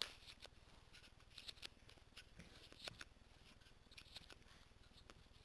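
Faint, scattered clicks and scrapes of foam Nerf darts being pushed into a plastic ammo rail.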